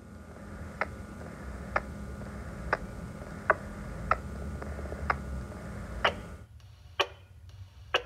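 Radio test of a repeater with an inline power amplifier connected: no voice comes through, only sharp clicks about once a second over a low steady hum. The hum stops about six seconds in while the clicks go on. It is a sign that the amplifier leaves the repeater unable to pass speech.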